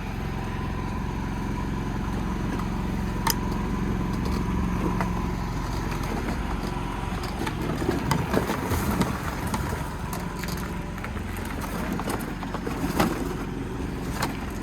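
A machine running with a steady low hum and a faint steady whine. About halfway through the hum drops away and gives way to scattered rattling, clattering and knocks.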